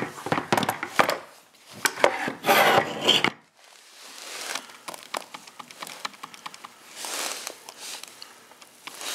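A Holley four-barrel carburetor being turned over and handled on a wooden workbench: a busy run of metal knocks, clunks and scraping against the bench for about three seconds, then lighter scattered clicks as its throttle linkage is worked by hand.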